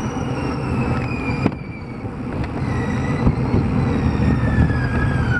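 Road bike rolling on asphalt with wind buffeting the microphone, a steady rumble of tyre and road noise, and a faint whine that slides slowly down in pitch as the bike slows. A single sharp click comes about one and a half seconds in.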